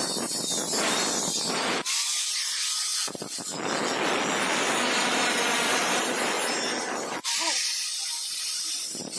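Angle grinder with a thin cutting disc slicing through stainless steel square tube: a loud, steady, hissing grind. It lets up briefly about two seconds in and again from about seven seconds in, where the disc's pitch drops, then bites back in near the end.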